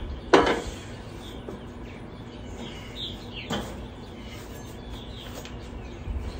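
Two short knocks of a metal cooking utensil against a steel flat-top griddle, the louder about a third of a second in and another about three and a half seconds in, with birds chirping faintly in between.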